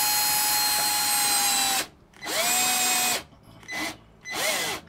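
Milwaukee M12 cordless drill driving a screw into the wall through a closet pole socket's flange, with no pilot hole drilled. A long steady run stops a little under two seconds in, followed by a shorter run and two brief bursts on the trigger.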